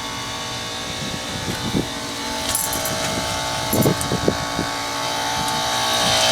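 Bard wall-mount heat pump running in cooling mode: its Copeland scroll compressor and condenser fan give a steady hum with several fixed tones, growing louder near the end. A few short low thumps come through about a second and a half in and again around four seconds in.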